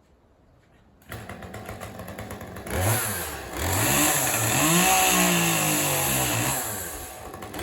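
Chainsaw engine coming in about a second in and running with a rapid rattle, then revved up and down about three times, its pitch rising and falling with each rev.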